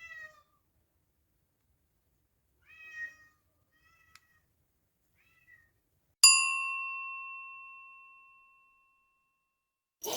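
A cat meowing: several short meows over the first five or six seconds. Then a single bell-like ding, the loudest sound, rings out and fades over about three seconds.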